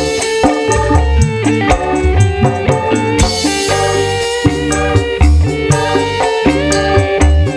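Loud music with heavy bass and a busy percussion beat, played through a large PA sound system during a sound check.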